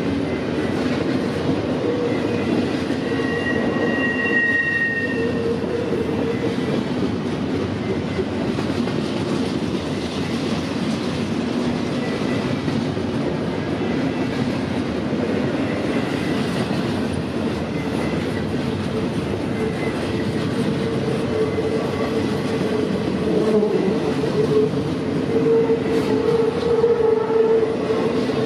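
Freight train rolling past, steel wheels on rail making a steady loud rumble, with squealing wheel tones coming and going and growing near the end.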